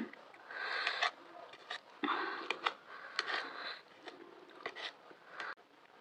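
Close-miked eating sounds: chewing and wet mouth noises in several short bursts with small clicks, from a mouthful of macaroni.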